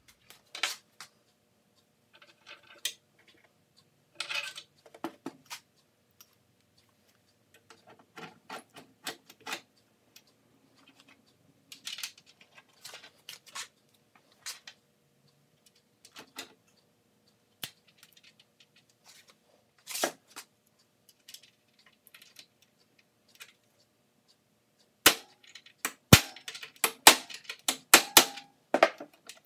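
Scattered clicks and knocks of metal hardware being handled, then near the end a quick run of sharp hammer taps on metal at the axle end of a steel wagon wheel, fixing the wheel onto its axle.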